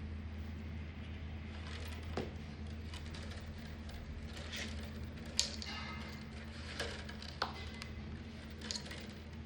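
Steady low hum with a few scattered light taps and clicks, the sharpest about five seconds in with a brief ring after it.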